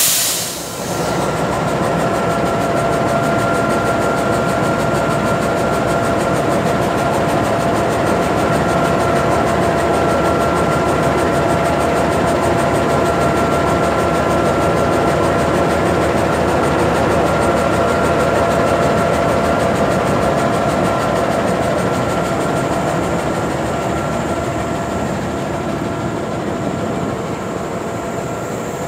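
Engine of a GE CM20EMP (CC206) diesel-electric locomotive running steadily, heard close to its radiator and engine-room grilles: a dense mechanical rumble with a steady whine over it. There is a brief loud rush of noise right at the start, and the sound eases off a little near the end.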